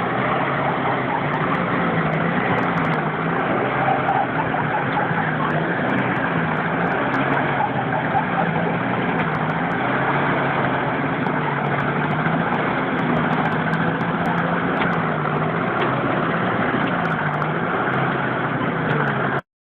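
A motor vehicle engine running steadily, its low hum rising and falling in a slow regular cycle about every second and a half over a constant rushing noise. The sound cuts off abruptly near the end.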